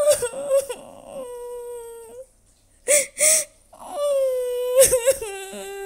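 A woman's feigned crying: two long drawn-out wails with a pair of sharp gasping sobs between them, put on as a prank.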